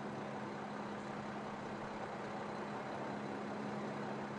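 Idling emergency-truck engines: a constant low hum under a steady hiss, unchanging throughout.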